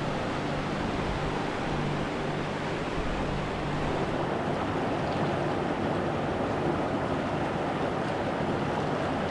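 Mountain creek rushing over rocks: a steady, even wash of flowing water.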